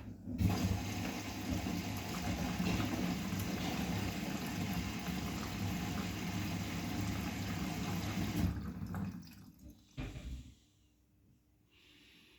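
Water rushing through a Bosch WGA25202TR washing machine, a steady rush with a low rumble that starts about half a second in and cuts off sharply after about eight seconds. A short thump follows near the end.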